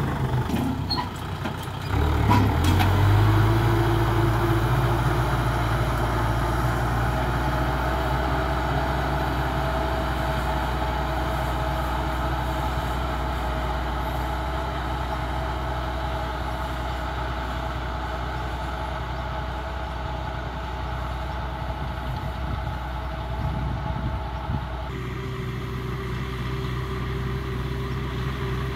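Kubota M6040 tractor's diesel engine running steadily under load while it pulls a rotary tiller through dry soil. The sound grows slightly fainter as the tractor moves off across the field.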